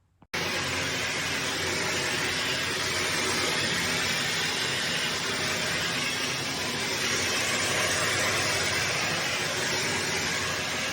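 Hoover HL4 upright vacuum cleaner running steadily, its motor whine over a loud rush of air. It starts abruptly about a third of a second in.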